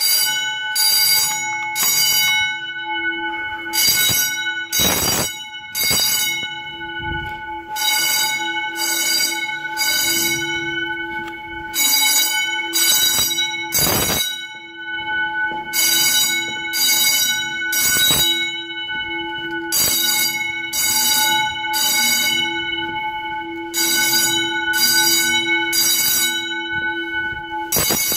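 Edwards 439-10AWC fire alarm bells ringing loudly after a manual pull station is pulled. The ringing comes in groups of three short bursts about every four seconds, the temporal-three evacuation pattern, over a steady ringing tone. A couple of handling thumps are heard.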